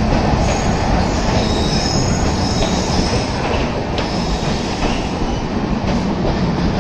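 Rajdhani Express passenger coaches rolling past along a station platform: a steady rumble of wheels on rail, with a faint high wheel squeal over the first few seconds and a few sharp clicks from the wheels later on.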